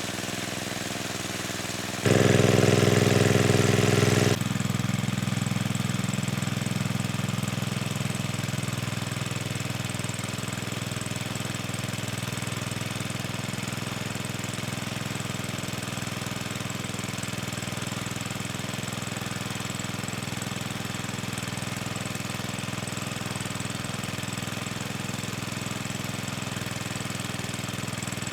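A small engine running steadily with a rough, knocking hum. About two seconds in it gets much louder for two seconds, then cuts back abruptly and settles to a steady level.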